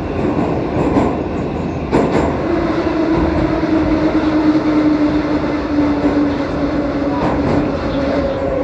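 Metro train running through a tunnel, heard from inside the carriage: a steady rumble and rail noise, a sharp clack about two seconds in, and then a whine that falls slowly in pitch.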